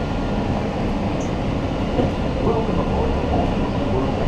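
Walt Disney World Railroad train running along its track, a steady rumble of wheels on rails.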